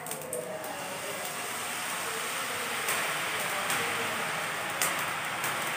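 Hot oil sizzling around strands of gram-flour sev dough as they are pressed into the pan to deep-fry. The sizzle builds over the first couple of seconds, with a few sharp crackles.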